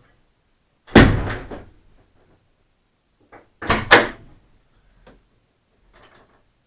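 The back door of a DIY wooden camper topper being shut firmly: a sharp slam about a second in, then a quick double knock a little before the middle, each trailing off briefly. A few faint knocks follow.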